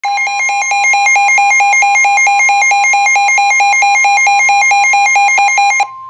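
Midland weather alert radio sounding its warning alarm for a severe thunderstorm warning: a loud, fast, even pulsing beep at about five a second over a steady high tone, the NOAA Weather Radio warning alarm tone. The pulsing stops just before the end, and the steady tone carries on.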